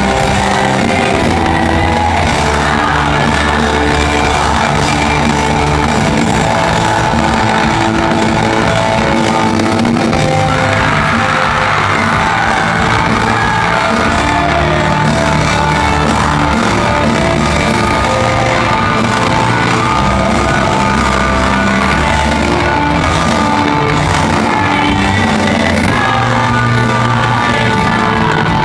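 Live rock band playing loud through a concert sound system, with a sung vocal line over the band, heard from within the audience in a large hall.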